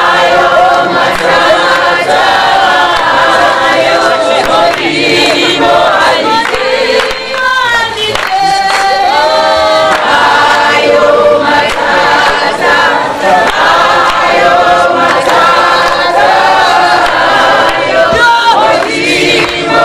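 A choir of many voices singing together, loud and continuous.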